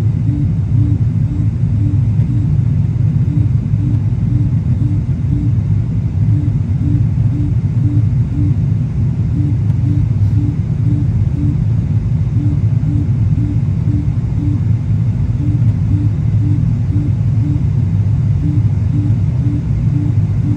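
Steady low rumble of an airliner cabin in flight, engine and airflow noise heard from inside. A faint tone pulses through it about two or three times a second, dropping out now and then.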